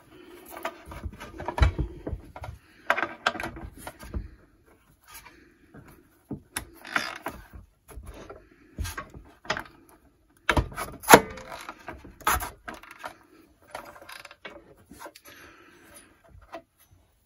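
Hand socket ratchet clicking in short, irregular spells as it works the belt tensioner nut of a Stihl TS410 cut-off saw, with metal clinks of the socket on the nut. A single sharp click a little past the middle is the loudest sound.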